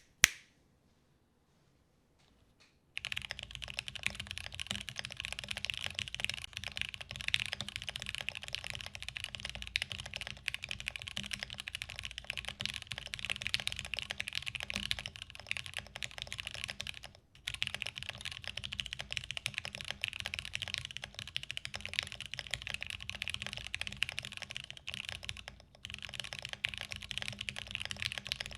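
Continuous typing on a custom Alice-layout mechanical keyboard: a Praxis case with a UHMWPE plate, Oil King linear switches and ePBT keycaps. There is one sharp click at the very start, then near silence until about three seconds in. After that the typing runs densely, pausing briefly twice.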